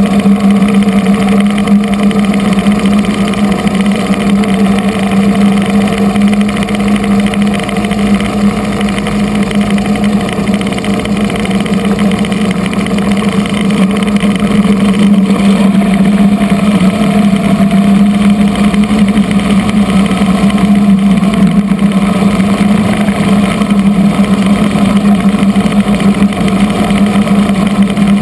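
Kamov Ka-26 helicopter running on the ground: its twin nine-cylinder radial piston engines and rotor drive make a loud, steady mechanical sound with a strong low hum.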